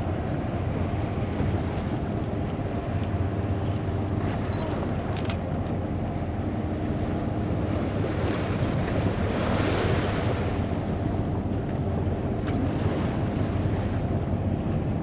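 A whale-watching boat's engine idling steadily under wind and sea noise, with water lapping around the hull. A louder rushing swell of noise builds and fades about eight to eleven seconds in.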